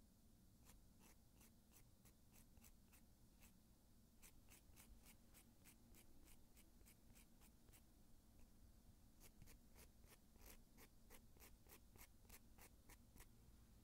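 Nail file scraping faintly across the fingernail tips in quick, short downward strokes, about four a second, in three runs with brief pauses between them.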